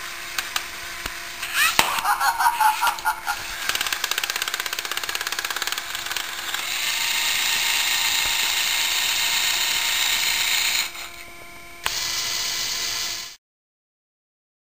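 Lego NXT and Power Functions electric motors driving the plastic gearing of a ball-shooter mechanism: an irregular clattering, then a fast even rattle, then a steady whir that drops away, starts again briefly and cuts off suddenly.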